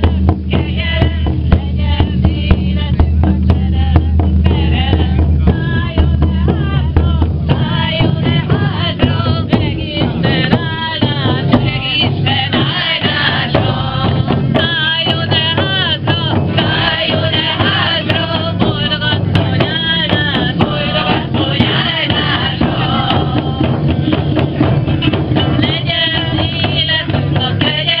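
A group beating hand-held frame drums with beaters in a steady rhythm while voices sing together over the drumming, the singing becoming stronger from about eight seconds in.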